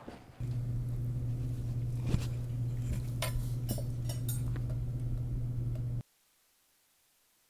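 Light clinks of a metal fork and knife being nudged around on a paper napkin on a table, over a steady low hum. The sound cuts off abruptly about six seconds in, leaving near silence.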